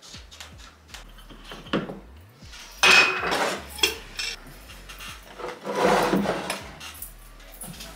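Dishes and utensils being handled in a kitchen, with scattered small clinks and knocks and two louder, noisier handling sounds about three and six seconds in.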